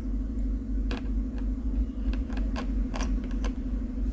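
Light metallic clicks and taps of a precision screwdriver working the tiny shield screws inside an iPhone XS, about half a dozen spread out, over a steady low hum.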